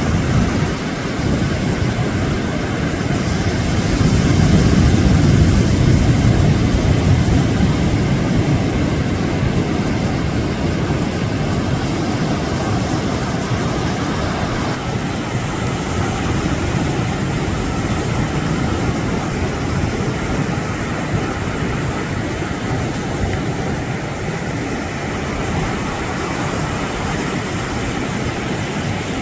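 Steady rushing noise of surf and wind at the shoreline, with no clear separate events; it swells louder about four seconds in, like a wave breaking, then settles back.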